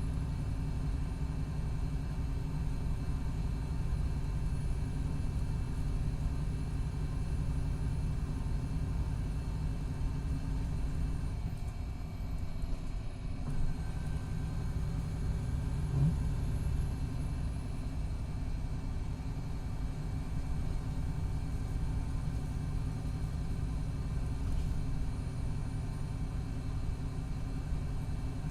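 2019 MCI D4500CT coach with a Cummins ISX12 diesel running steadily, a low rumble with faint steady whining tones over it; its Allison B500R transmission is failing. The level dips briefly about halfway through, and there is one short click soon after.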